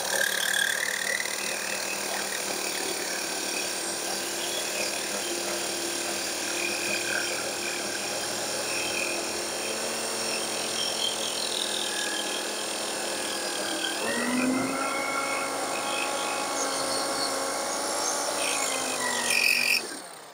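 Electric drill with a diamond-tipped hole-saw bit grinding a hole through the glazed ceramic base of a clay pot, wet with water as lubricant: a steady grinding with the drill motor's note underneath. The note changes pitch about two-thirds of the way in; the bit is nearly through the base.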